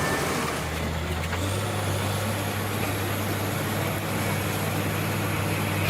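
Heavy diesel machinery engine running steadily, its deep hum stepping up in pitch about a second and a half in.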